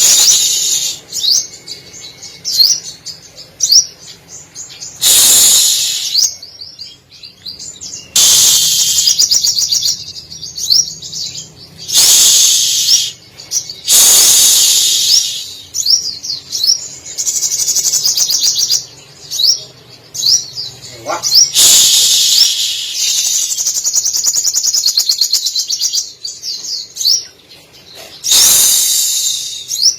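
Captive sogok ontong (little spiderhunter) singing loudly, with mimicked canary, cililin, sparrow and lovebird phrases mixed into its song. Loud bursts of song a second or two long alternate with runs of quick, sharp, down-slurred chirps.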